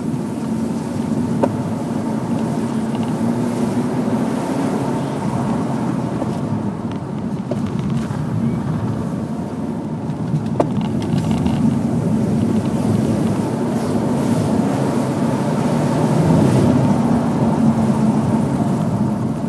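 BMW 318Ci's four-cylinder engine heard from inside the cabin while driving, its revs rising and falling, over steady road and tyre noise. Two sharp clicks stand out, one about a second and a half in and one about ten seconds in.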